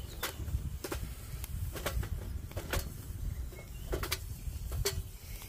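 Wood fire crackling in a stainless-steel camp stove, with sharp irregular pops every half second or so over a low steady rumble.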